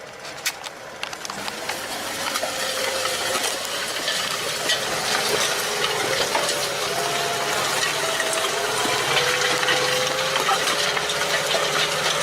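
Farm machinery running, its noise building steadily louder, with many small clicks and rattles over it.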